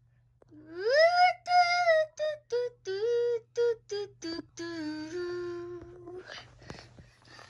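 A person's voice singing a wordless tune: a rising swoop into a held note, a run of short clipped notes, then a long lower held note. It stops about 6 s in, followed by faint rustling and breathing noises.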